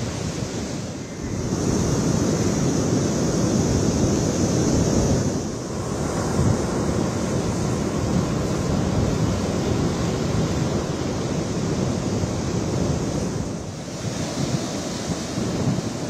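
Heavy surf of a rough sea, whipped up by an approaching cyclone, breaking continuously on a rocky shore, with strong wind buffeting the microphone.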